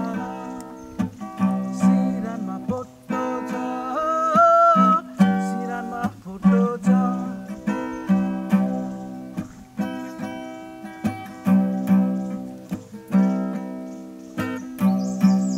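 Acoustic guitar strummed in repeated chords, with a man singing a song over it.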